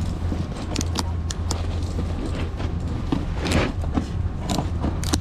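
Snowboard binding ratchet straps clicking in short sharp bursts as they are tightened, over a steady low hum.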